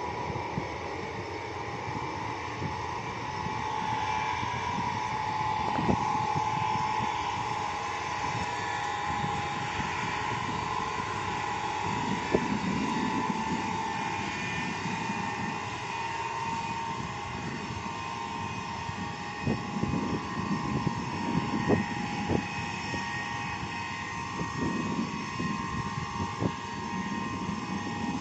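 Ilyushin Il-76MD's four Soloviev D-30KP turbofan engines running, a steady high whine over a rumble, with a few brief knocks along the way.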